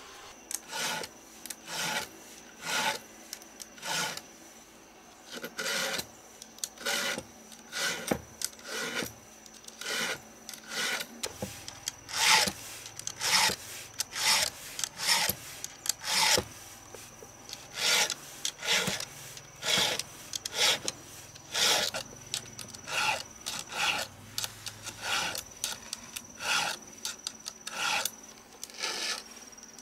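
Short scraping strokes of a hand tool worked back and forth on a workpiece, about one and a half strokes a second in an uneven rhythm.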